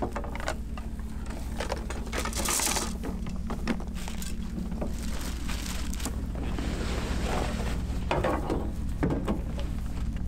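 Rustling and light clunks of bags and hunting gear being handled at a pickup truck's tailgate, with a louder rustle about two and a half seconds in, over a steady low hum.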